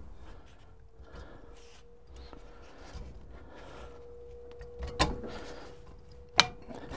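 Steel parts of a tractor clutch pressure plate being handled and seated on the bench: a few light knocks, then two sharp metal clicks, about five and six and a half seconds in.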